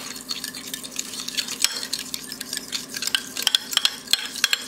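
Metal fork stirring melted butter with lemon juice, salt and pepper in a ceramic dish: a quick, irregular run of light clicks and scrapes as the tines tap against the dish.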